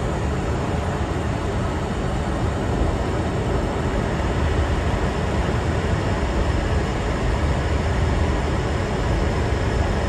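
Steady flight-deck noise of an Airbus A350 airliner in high-altitude flight: an even, unbroken rush of airflow and engine noise, heaviest in the low end.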